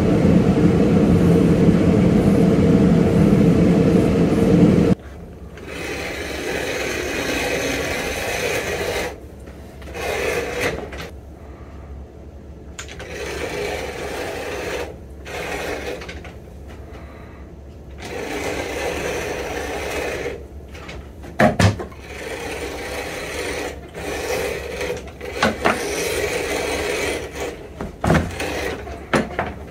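A loud, steady machine hum that cuts off suddenly about five seconds in, then a Landis rotary leather cutter running and slicing a sheet of sole leather in short stretches, with a few sharp clicks near the end.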